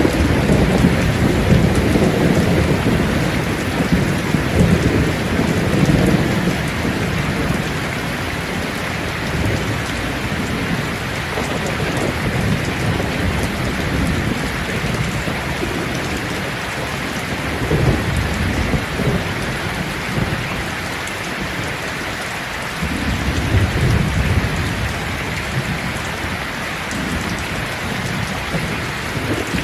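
Steady rain pattering on leaves, with low rumbles of thunder rolling through in the first few seconds and again about three quarters of the way through.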